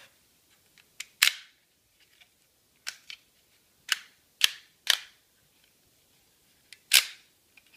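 A folding black plastic tripod stand being handled, giving about eight or nine sharp plastic clicks and snaps at uneven intervals.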